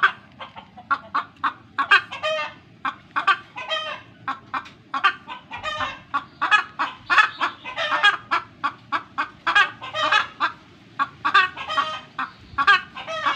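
Chickens, roosters among them, clucking and squawking in a fast, dense run of short calls, several a second, with no long crow.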